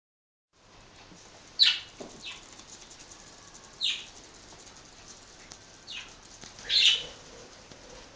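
Budgies giving short, sharp chirps, about five in all, the loudest about a second and a half in and near the end.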